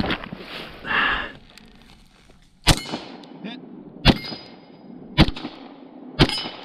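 Four pistol shots from a Beretta LTT 9mm, fired singly about a second apart, starting a little under three seconds in.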